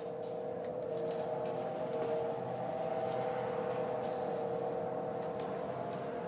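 A steady drone of several held tones, the mysterious noise heard across the sky and coming from all around. Its source is unknown; the person recording it wonders whether it is machinery.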